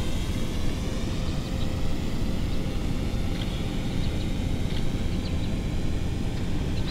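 Ford Bronco Sport's engine running as a steady low drone while the SUV crawls slowly over rough dirt ground.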